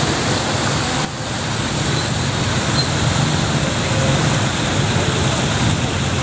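Steady traffic noise from vehicles moving along a flooded street: a dense even hiss with a low engine hum underneath. The level dips briefly about a second in.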